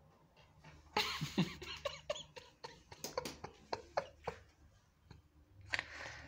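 Handling noise from the recording phone being picked up and moved: a burst of rustling about a second in, then a string of sharp clicks and knocks, and another rustle near the end.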